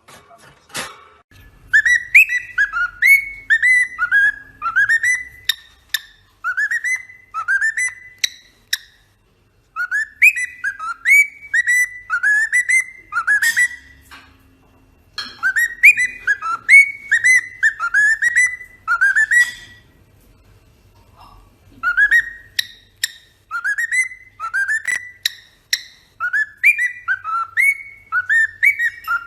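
A parrot whistling a tune: about five phrases of short swooping notes, each note rising then dipping, with brief pauses between phrases.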